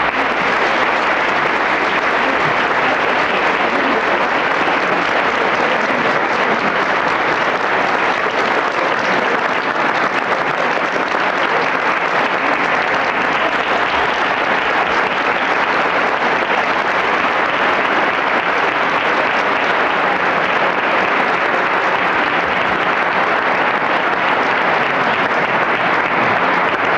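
A large crowd applauding, steady sustained clapping that keeps an even level throughout.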